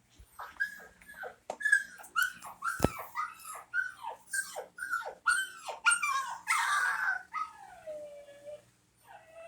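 A puppy yelping in a quick run of about a dozen short cries, each falling in pitch, then one long whine sliding down in pitch. There is a single sharp click about three seconds in.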